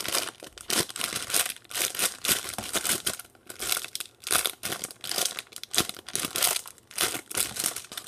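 Clear plastic bag crinkling as the soft foam eclair squishy inside it is squeezed and turned in the hands, in quick irregular rustles.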